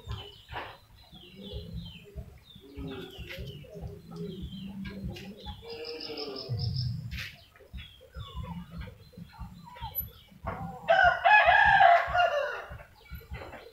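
Chickens clucking on and off, with one long rooster crow about eleven seconds in, the loudest sound.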